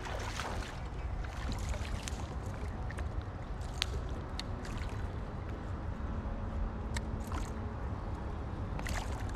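Water lapping and splashing around a kayak on a river, with scattered short clicks and knocks over a steady low rumble.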